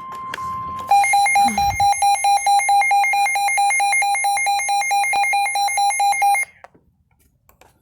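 Emergency alert attention tone signalling a severe thunderstorm warning. A steady electronic tone switches about a second in to a loud, rapidly pulsing beep, which cuts off suddenly about six and a half seconds in.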